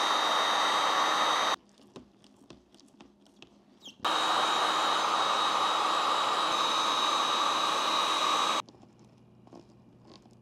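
Electric heat gun (Seekone) blowing hot air with a steady fan rush and a thin high whine, aimed at a helmet's chin camera mount to soften its adhesive. It runs for about a second and a half, stops abruptly, and runs again from about four seconds in until it cuts off near the end, with faint clicks of handling the plastic mount in the quiet gaps.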